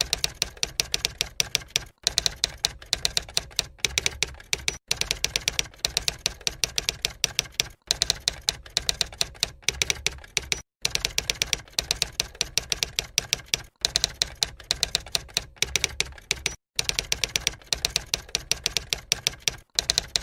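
Typewriter sound effect: a rapid, unbroken run of key clacks with short breaks every few seconds, keeping time with text being typed out on screen.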